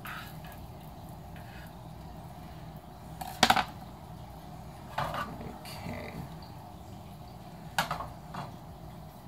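Kitchen clatter from a frying pan and spatula on a gas stove: a few sharp knocks against the grate, the loudest about three and a half seconds in and others around five and eight seconds, over a low steady hum.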